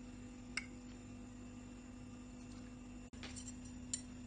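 Faint steady hum with a few light clicks of metal tongs against the air-fryer basket and plate as the seekh kebabs are lifted out. The sound drops out for an instant a little after three seconds.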